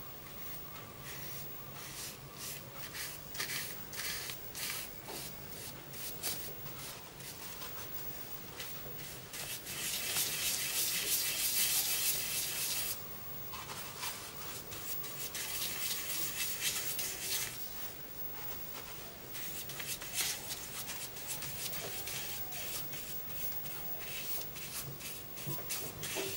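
Paintbrush bristles scrubbing and swirling thick paint on paper: a dry, rasping rub in many short strokes, with a louder stretch of brisk scrubbing about ten seconds in lasting a few seconds. The paint is being mixed on the paper to darken the colour.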